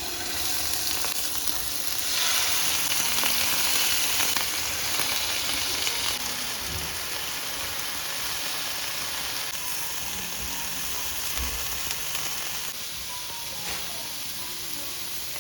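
Food sizzling in a hot pan, a steady hiss that is loudest a couple of seconds in for about four seconds, then settles softer.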